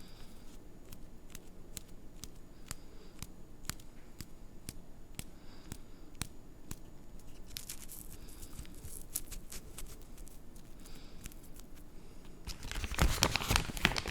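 Cigarette being hand-rolled: tobacco and cigarette paper handled with scattered small clicks and light rustles, then a louder, denser stretch of paper-and-tobacco rustling near the end.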